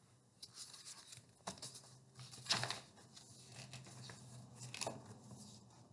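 Paper pages of a paperback picture book being handled and turned: faint rustles and light scrapes, the clearest about two and a half seconds in and again near five seconds.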